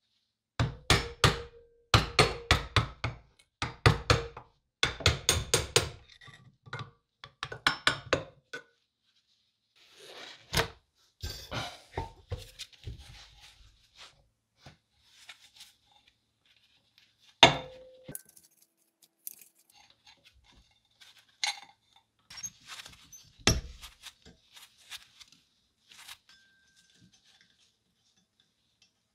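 Rapid series of knocks with a metallic ring on the cast-iron housing of an old Leland electric motor, working the end bell loose, for the first eight seconds or so. Then scattered clinks and clicks of the parts being handled, with two heavier single knocks of metal set down on the bench.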